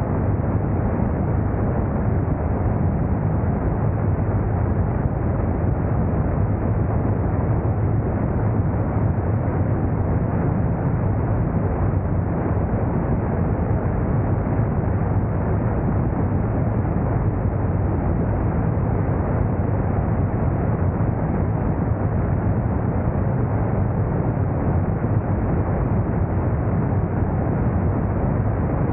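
Motorcycle engine running steadily at cruising speed, a constant low hum under rushing wind noise.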